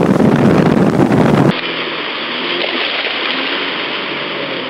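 Loud rush of wind on the microphone and churning wake water from a speeding motorboat towing a tube. About a second and a half in it cuts abruptly to a quieter, steady wash of water noise.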